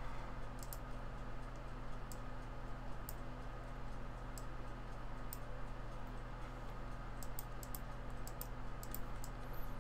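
Irregular faint clicks of a computer mouse and keyboard in use, over a steady low electrical hum.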